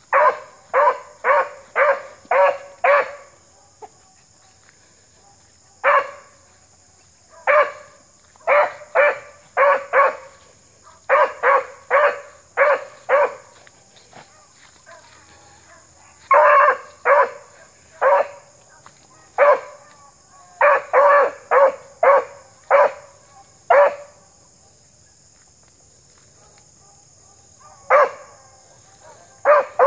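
Hunting dog barking in quick runs of short barks, about two a second, broken by pauses of a few seconds.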